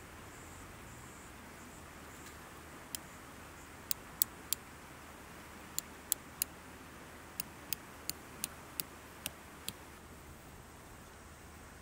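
A wooden-handled hammer striking a metal tent peg to drive it into the ground: about fourteen sharp metallic taps, one on its own, then two quick runs of three, then a steadier run of seven.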